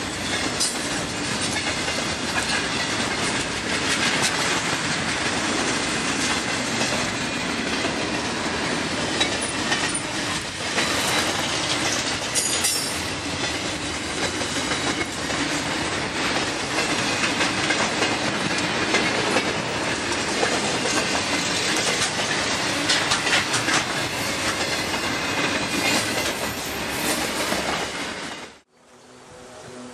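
Long intermodal freight train's wagons rolling past at close range, wheels clattering steadily over the rails. The sound cuts off abruptly near the end, leaving only a faint background.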